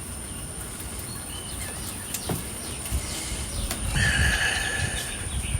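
Birds calling, with short sliding chirps and a louder, harsher call lasting about a second near the end. Under them runs a low rumble of wind on the microphone.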